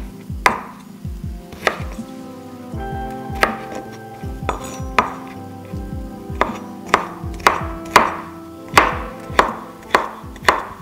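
Chef's knife dicing pickled gherkins on a wooden cutting board: about a dozen sharp knocks of the blade on the board at uneven intervals. Background music with steady held notes and a low beat plays underneath.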